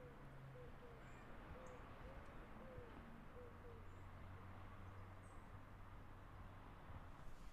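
Faint, soft hooting calls of a bird: short arched notes about two a second that stop about halfway through, over low, quiet background hum.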